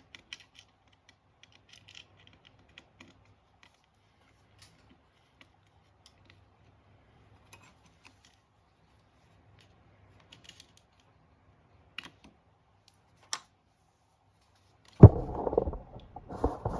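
Faint scattered clicks and taps from hand work on a bracket of a portable refrigerator's compressor module. Near the end comes a loud, rough clattering scrape as the bracket works loose.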